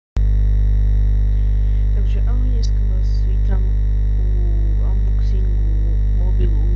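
Music with a loud, steady low drone, and a voice or melodic line that bends in pitch over it starting about a second in.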